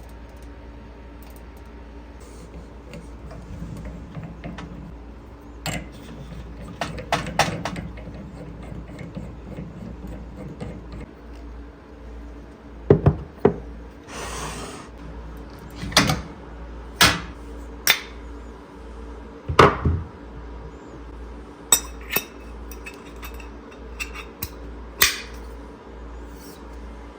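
Scattered clicks and knocks of hard parts being handled and fitted onto an espresso machine, with a brief rustle about halfway through, over a faint steady hum.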